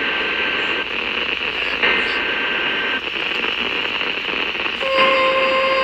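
Weather radio receiver playing a staticky NOAA Weather Radio broadcast: steady hiss with two faint data bursts of about a second each, the EAS header of a new alert. About five seconds in, a steady alert tone starts, the start of a flash flood warning.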